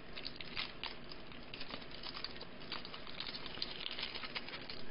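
Trading card pack wrapper being torn open and peeled back by hand: faint, irregular crinkling with many small crackles and ticks.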